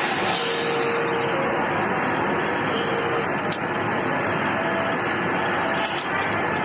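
Steady mechanical din of industrial sewing machines running on a garment-factory floor.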